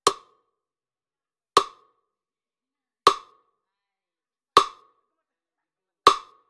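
Metronome clicking five times, one sharp click every second and a half (about 40 beats a minute), beating out the pace for the dips.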